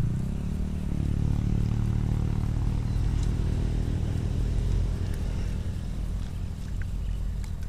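A motor engine running steadily, a low drone that eases off a little about five seconds in.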